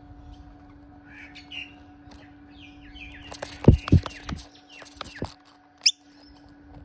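Noisy miner calls: short chirps, then a quick rising call near the end. In the middle come loud knocks and rustling as the fledgling moves about on the camera, the two thumps just before halfway being the loudest.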